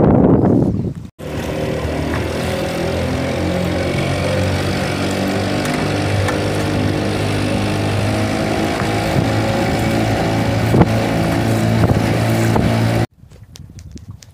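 Small boat's outboard motor running steadily with the boat under way. It comes in abruptly about a second in and cuts off abruptly about a second before the end, where a loud rushing noise gives way to a much quieter stretch.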